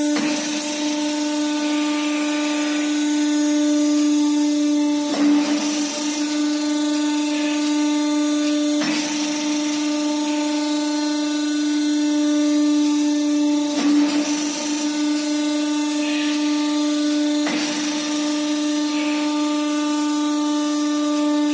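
Gas cylinder homogenizer running: its drive motor gives a steady, loud whine, with a brief rushing surge every four to five seconds as the machine cycles.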